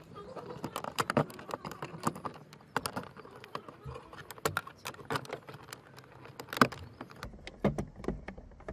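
Irregular plastic clicks and taps, with wire rattling, as a homemade wire tool is worked in behind a car's door-mirror glass to unclip it from the mirror housing. The loudest knock comes about two-thirds of the way through.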